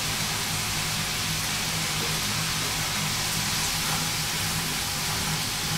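Wok vegetables sizzling steadily in a frying pan on an electric stove, an even hiss, with a steady low hum underneath.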